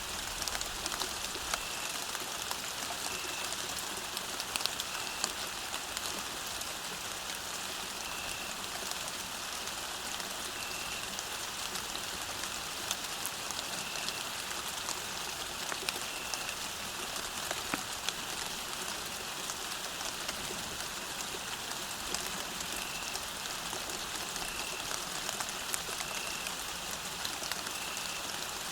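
Steady rain falling on the ground, with many individual drops ticking. A faint, short, high chirp recurs every second or two.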